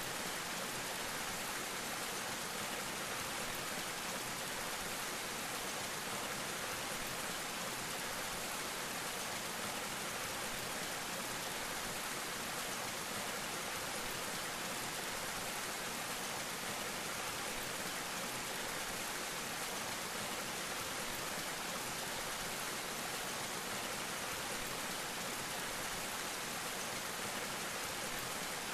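Small waterfall falling in thin streams onto rock and a pool, a steady splashing patter like heavy rain.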